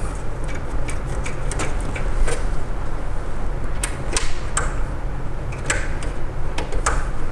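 Irregular light clicks and taps of small screws being handled and set into the graphics card's mounting bracket on a desktop computer case, over a steady low hum.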